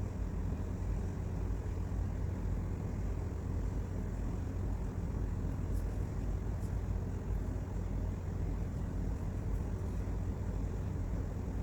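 Steady low background rumble with no speech, with a couple of faint light ticks about halfway through.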